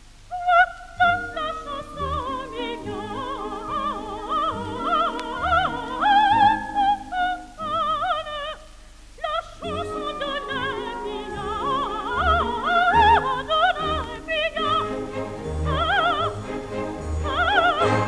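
Coloratura soprano singing a French operatic aria with orchestra, from a 1948 recording: quick short high notes, runs and wavering vibrato over the orchestra, with a brief pause about halfway through.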